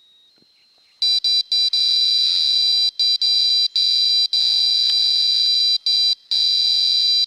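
Electronic carp bite alarm sounding a loud, steady high-pitched tone that starts about a second in and runs almost without pause, broken by several short gaps. A near-continuous tone like this is what the alarm gives when line runs fast through it, as on a fish's run.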